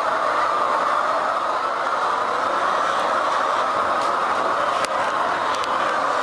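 Steady din inside an enclosed layer poultry house, a dense mass of hen noise blended with running ventilation fans, with a few light clicks about three to six seconds in.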